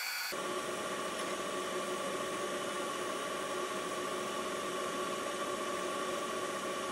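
A high machining whine cuts off just after the start. It leaves a steady mechanical hum and hiss with a few faint held tones, from a mini metal mill running with no cut.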